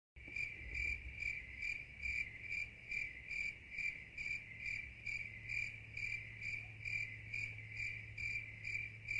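Crickets chirping in a steady, even rhythm of about two to three high chirps a second, over a faint low steady hum.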